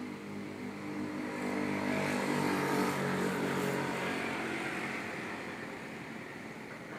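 A motor vehicle passing by: its engine and tyre noise swell up to a peak about three seconds in, then fade away with the pitch dropping slightly.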